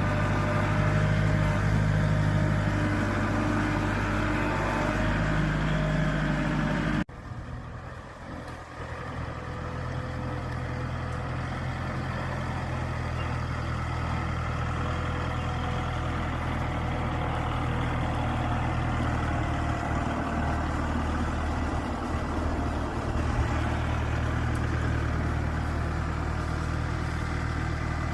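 Engine of heavy job-site machinery running steadily. About a quarter of the way in the sound cuts abruptly to a quieter engine that gradually grows louder again.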